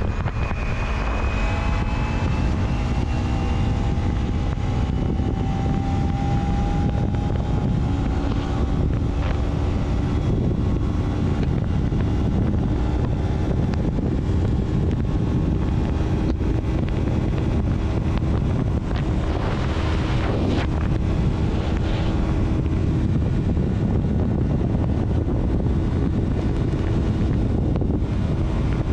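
A vehicle travelling along a road: a steady low rumble of engine and road noise with wind on the microphone. The engine's tone drifts slowly up and down in pitch.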